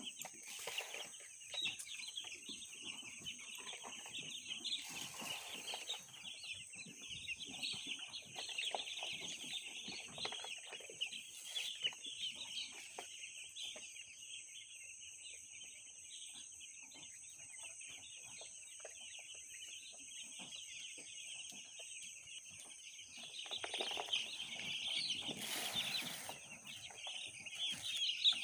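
A brood of two-day-old broiler chicks peeping continuously in a dense chorus, which grows louder about three-quarters of the way through. A few brief rustles sound now and then.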